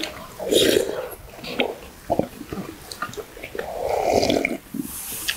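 Two people eating hot squid and radish soup from stainless steel bowls: wet slurping and chewing, with a few light clicks of a spoon against a steel bowl. There is a longer slurp about four seconds in, as the broth is drunk straight from the bowl.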